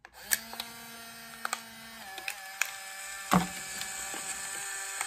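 Fujifilm Instax Mini 7s ejecting the black film cover after a new film pack is loaded: a click, then the camera's film-eject motor whirring steadily with several small clicks and one louder knock a little past three seconds in.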